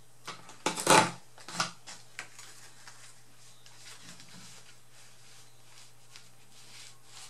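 Martha Stewart border punch pressed down through cardstock about a second in: a sharp crunching clack, then a smaller second clack. Faint paper handling follows as the cardstock is slid and lined up under the punch.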